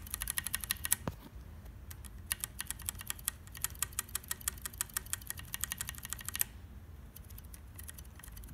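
A Zealio V1 mechanical keyboard switch pressed over and over in quick runs, several sharp clicks a second, with the switch's metal contact leaf audible in the strokes. The clicking breaks off for about a second early on, then again for the last two seconds.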